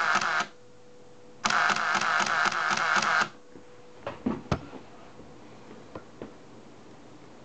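Nikon F2 with motor drive firing continuously, its shutter and film advance cycling about five times a second. One burst stops about half a second in, and a second burst of nearly two seconds starts about a second and a half in. A few sharp handling clicks follow.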